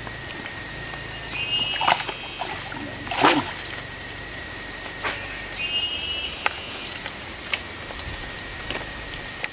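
Forest ambience: a steady high buzz of insects, with a short chirping call twice, about one and a half seconds in and again near six seconds. Several sharp clicks and knocks stand out, the loudest about three seconds in.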